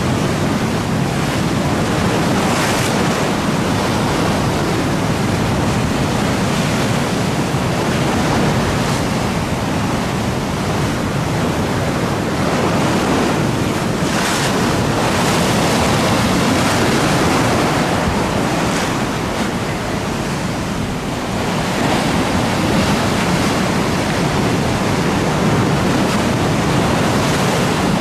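Wind blowing hard across the microphone over choppy river water, with waves breaking and splashing, and a few brief louder surges.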